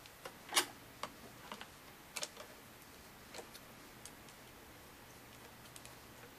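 A scattered series of light clicks and taps from a Phillips screwdriver, small screws and a mounting bracket being handled against a laptop LCD panel, the loudest about half a second in.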